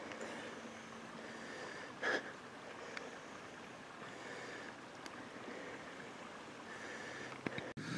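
Faint, steady wind noise over open ground, with one brief knock about two seconds in.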